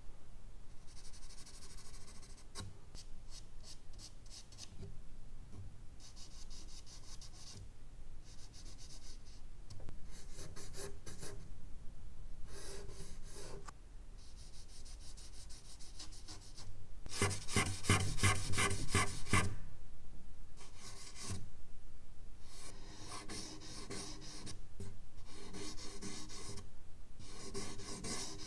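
Charcoal stick scratching and rubbing across medium-surface drawing paper in runs of quick back-and-forth strokes, with short pauses between runs; the loudest run comes a little past the middle.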